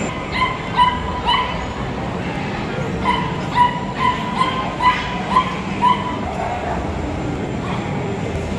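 A dog barking in short, high-pitched yips: about three near the start, then a quicker run of about seven between three and six seconds in, over the steady murmur of a crowded hall.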